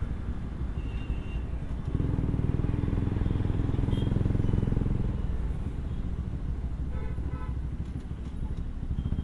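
Bajaj Pulsar NS200's single-cylinder engine running under the rider, getting louder about two seconds in and holding for a few seconds before easing off.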